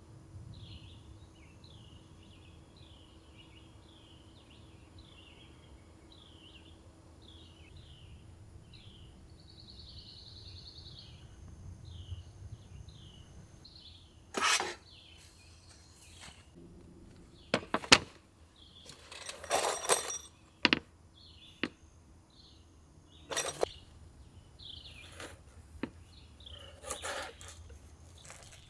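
A bird chirps over and over, short high notes about once or twice a second. From about halfway in, a series of sharp knocks and short scraping bursts of things being handled come in, louder than the chirps.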